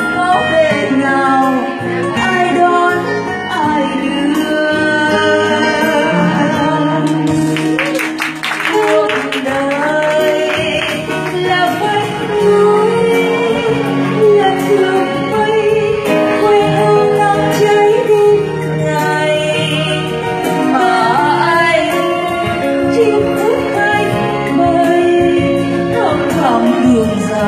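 A woman singing a slow Vietnamese ballad live into a microphone, with held, wavering notes, accompanied by a strummed acoustic guitar and an electronic keyboard.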